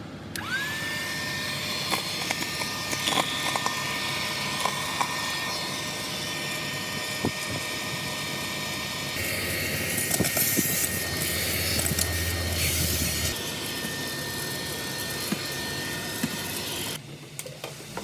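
Pumpkin VC01 rechargeable handheld vacuum cleaner switched on, its motor whine rising quickly to a steady high pitch and running on with scattered clicks. For a few seconds in the middle it sucks crumbs up through the crevice tool, adding a louder rushing hiss. The motor sound cuts off near the end.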